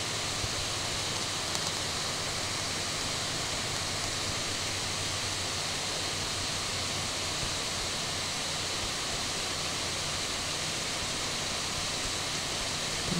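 Steady hiss of background noise with a faint low hum underneath, unchanging throughout, with no distinct clicks or other events.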